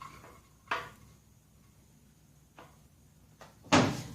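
A few light knocks and clatters, then near the end a loud hammer smack with a short ring, struck to break loose a stuck part on a small engine.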